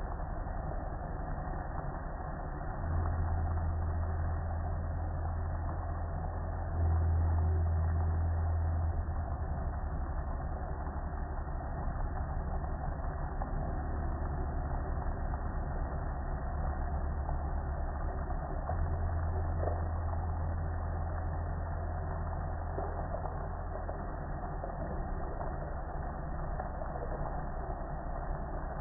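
Water pouring and splashing over a soapy gas grill, with an even hiss, under a steady low rumble that grows louder and softer several times.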